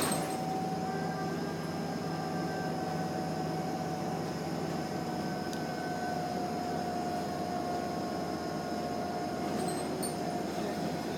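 Steady cabin noise of a transit bus under way: engine and road drone with a steady whine held at one pitch.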